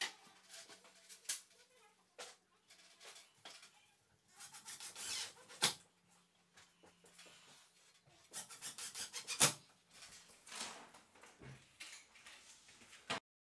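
Handling noises of timber battens and a cordless drill against the roof framework: scattered clicks, short scrapes and squeaks, with two sharp knocks, one about halfway through and one about two-thirds through. No steady drill run is heard.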